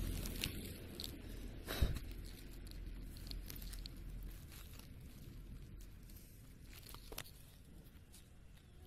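Faint rustling and crackling, with a sharper crackle about two seconds in and a smaller one near seven seconds.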